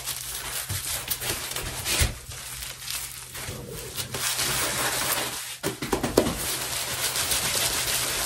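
Rustling and crinkling of a Tranquility Select disposable adult brief and sweatpants as they are tugged and adjusted at the waist.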